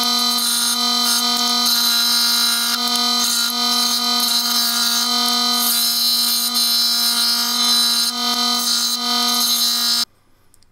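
Scroll saw running and cutting olive wood: a steady buzzing hum over a high hiss. It cuts off abruptly near the end.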